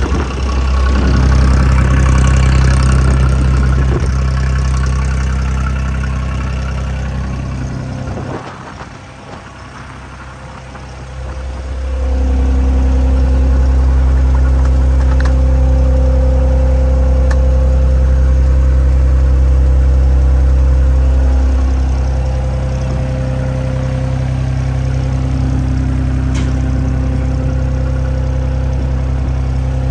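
Bernards W1050C compact wheel loader's diesel engine running steadily. It drops in level for a few seconds about eight seconds in, then runs louder again with a steady higher whine.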